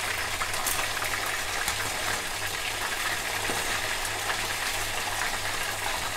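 Chicken frying in hot oil: a steady sizzle with scattered small crackles of spitting oil.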